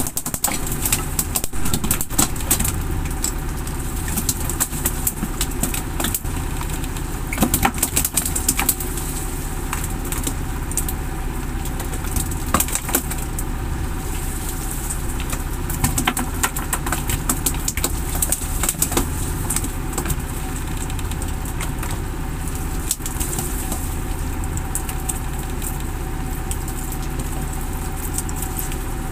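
Fishing boat's engine running steadily, with scattered sharp clicks and taps over it.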